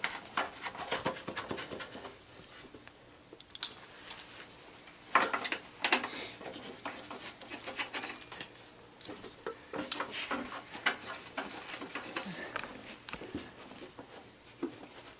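Irregular work noise of tools and parts being handled: scattered clicks, knocks and light clatter, with a few sharper knocks about five and ten seconds in.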